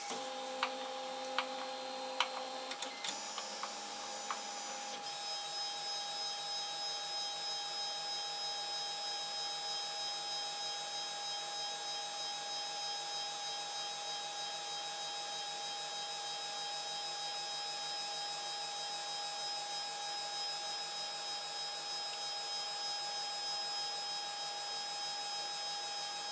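3D printer's stepper motors homing the axes: a few clicks and short steady tones at first, then from about five seconds a long, even whine of several steady pitches. A power-supply fan runs underneath.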